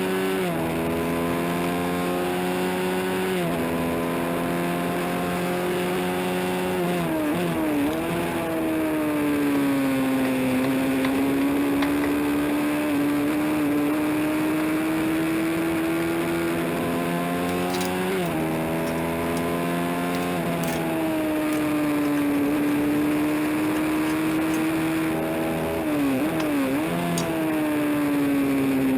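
Honda CB350 parallel-twin race engine running hard under load, its pitch climbing slowly and changing sharply several times as the rider shifts gears and gets on and off the throttle.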